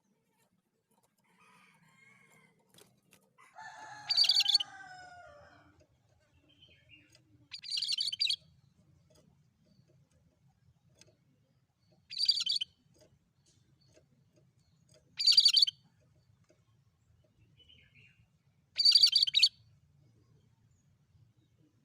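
Cucak kerinci singing: short, loud, high chattering bursts repeated about every three to four seconds, with a lower falling warble under the first one.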